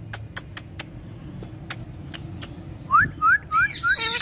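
Pet parrot making a string of sharp clicks, then about three seconds in four quick short rising whistles followed by a call near the end.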